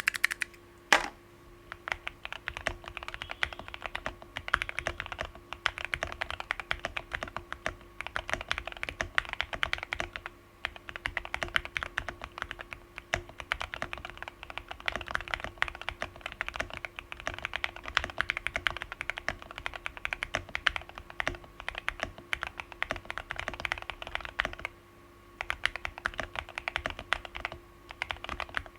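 Continuous typing on a Qwertykeys QK65 mechanical keyboard with lubed TKC Tangerine linear switches on a POM plate and no case foam. It is a dense run of keystrokes with one louder stroke about a second in and brief pauses about ten seconds in and again near twenty-five seconds.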